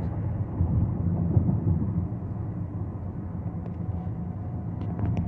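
Steady low rumble of road and drivetrain noise inside the cabin of a 2024 Toyota Venza hybrid cruising at highway speed, its engine turning at about 1700 to 1800 rpm.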